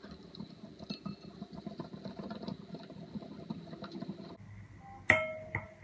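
Wire whisk beating a thick flour-and-egg batter in a glass bowl: rapid wet clicking and slapping strokes that stop about four seconds in. About a second later comes a single sharp clink that rings on.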